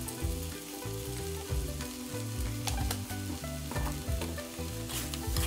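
Fried rice and chopped pork sizzling in a hot steel wok, stirred with a metal spatula that scrapes against the pan. A couple of sharp knocks come near the end.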